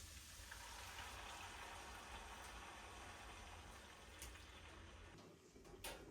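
Faint, steady hiss that fades after about five seconds, with two short clicks near the end.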